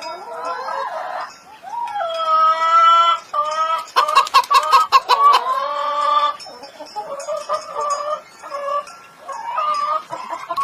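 Chickens calling: a series of pitched squawks and clucks, with a quick burst of rapid clucks about four seconds in.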